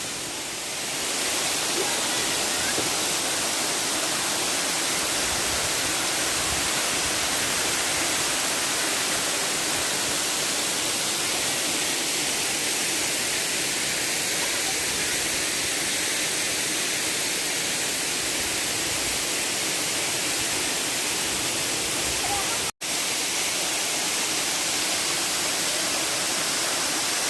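Waterfall rushing, a steady dense hiss of falling water that cuts out for an instant late on.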